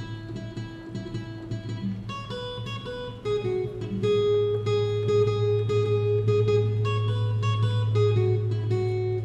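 Solo acoustic guitar picking a melody of single notes, playing louder from about three seconds in.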